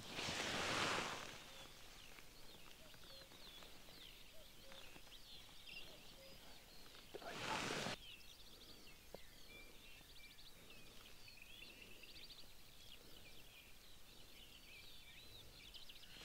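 Faint mixed birdsong, many small birds chirping and warbling. Two short rushes of hiss come in, one right at the start and one about seven and a half seconds in.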